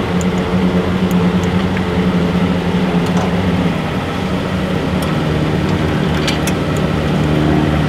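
Ford pickup truck's engine idling steadily, a low even hum, with a few light metallic clicks as the plow mount's safety pins are pulled.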